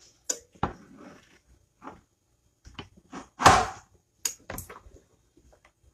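Hands moving a T-shirt about on a heat press's lower platen: scattered short knocks and rustles of cloth, the loudest about three and a half seconds in.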